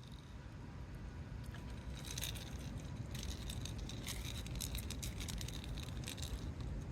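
Spinning reel being wound in: a fast, fine clicking whirr that starts about two seconds in and runs until near the end, over a low steady rumble.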